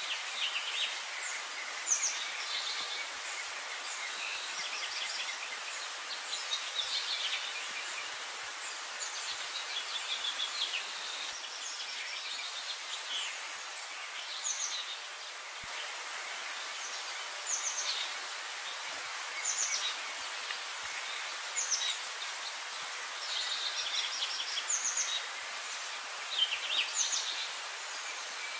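Sparrows chirping: short, high chirps every second or two, sometimes in quick clusters, over a steady outdoor hiss.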